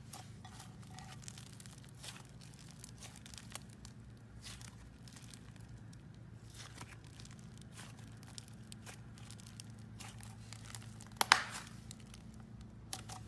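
Slime being squished and stretched by hand, giving faint crackling and popping clicks throughout, with a louder crackly crunch about eleven seconds in. A steady low hum runs underneath.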